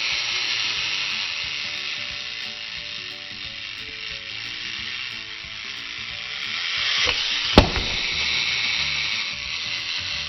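Clockwork mechanism of a wind-up toy frog running down with a steady buzzing whir, with one sharp click about seven and a half seconds in.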